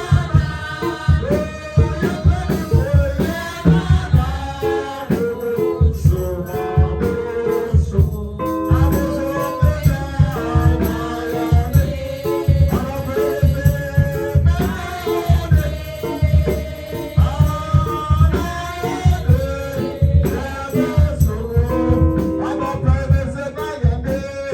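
Gospel music with singing over a steady drum beat and shaker or tambourine percussion.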